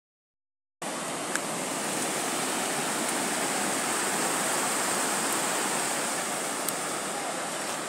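Steady rush of water pouring over a small dam spillway and cascading down a rocky stream. It starts abruptly just under a second in.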